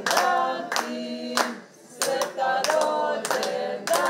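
A small group singing a birthday song together, with hand claps keeping time, about two a second, and a short break in the singing about halfway.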